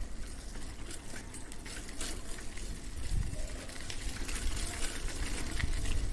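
A bicycle being ridden slowly over concrete: a steady low rumble with scattered light clicks and rattles from the bike.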